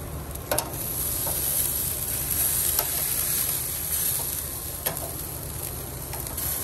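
Steak and swordfish sizzling on a hot grill as the New York strip is flipped with metal tongs. The sizzle gets louder about half a second in, and three sharp clicks of metal on metal sound through it.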